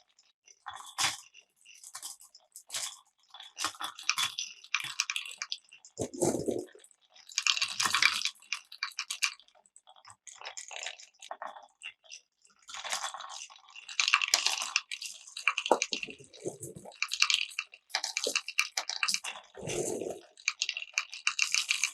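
Glass marbles rolling and clattering through Cuboro wooden marble-run blocks: a quick run of irregular clicks and rattles, with two duller thuds, about six seconds in and near the end.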